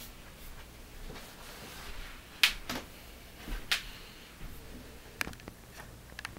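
Handling noise: a few sharp clicks and knocks, the loudest about two and a half seconds in and just before four seconds, with smaller ones near the end, over a faint room hum.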